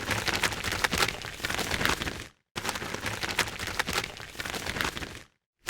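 A pair of gloves flapped rapidly as a Foley imitation of birds' wings, a dense fluttering that sounds a bit rubbery. It comes in two stretches, each cutting off abruptly, with a short silence between them.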